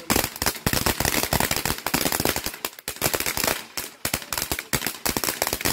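Firecrackers going off in a rapid, irregular run of sharp bangs, many a second.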